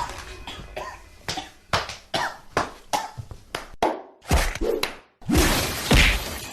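A person coughing in a run of short, sharp coughs, about two or three a second, followed about five seconds in by a longer, louder stretch of coughing.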